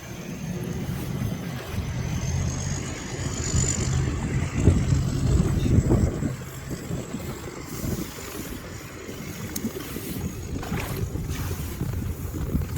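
A combine harvester's engine running steadily, with wind noise on the microphone.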